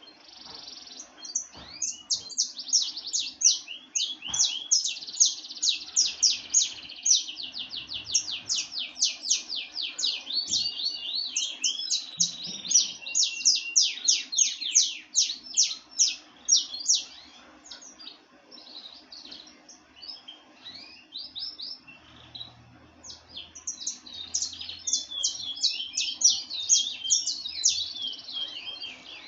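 Songbird singing long runs of short, high, steeply falling notes, several a second, thinning out in the middle and building up again near the end.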